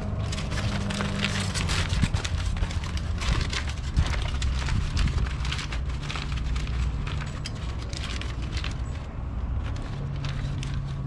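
Aluminium foil crinkling in quick irregular crackles as gloved hands fold it up around a rack of ribs. A steady low hum runs underneath.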